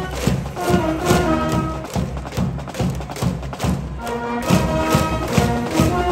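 School brass band with sousaphones playing a cheering tune in the stands over a steady drum beat, about two beats a second. The horns thin out for a couple of seconds in the middle while the drums keep going, then come back in.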